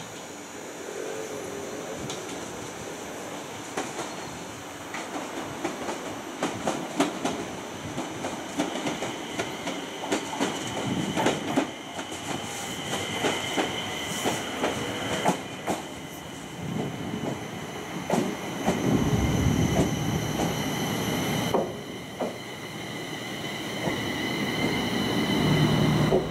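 Electric commuter train running on the rails. Its wheels click repeatedly over rail joints, a steady high-pitched squeal comes in about a third of the way through, and a heavier low rumble swells near the end.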